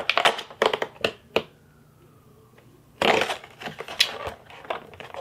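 The cardboard door of a Lights Lacquer advent calendar being picked at and pulled open by hand: a string of sharp clicks and scrapes, then, about three seconds in, a burst of rough crackling and tearing of card and paper.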